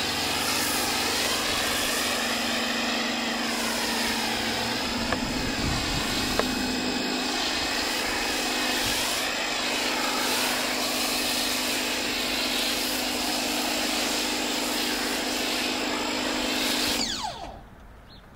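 Pressure washer running steadily while spraying foam through a foam cannon, a motor hum and spray hiss that waver in pitch. Near the end it shuts off and the motor winds down quickly.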